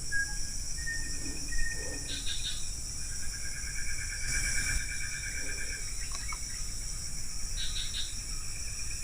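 Insects droning steadily at a high pitch, with scattered short bird whistles and chirps and a brief pulsing trill partway through.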